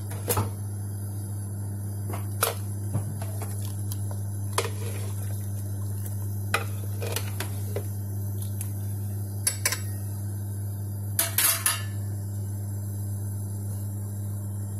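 A metal spoon and ladle knocking and scraping against a soup pot while the soup is stirred, with about ten sharp clinks spread out and a quick cluster of them past the middle. A steady low hum runs underneath.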